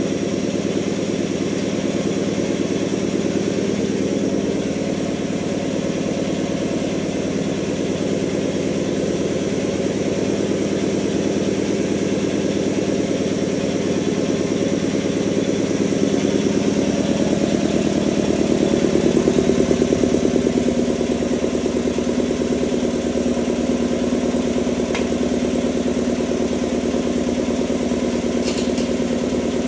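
Emglo twin-head piston air compressor running steadily with a rapid, even pulse; it gets a little louder about two-thirds of the way through.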